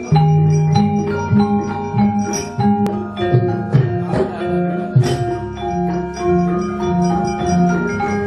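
Javanese gamelan music: struck metal keys ring out in a steady, busy melody over lower sustained tones.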